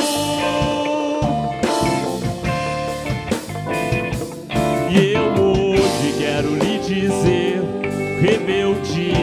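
Live band playing a song between sung lines: electric guitar, bass, drum kit, djembe and keyboard together, with a steady beat.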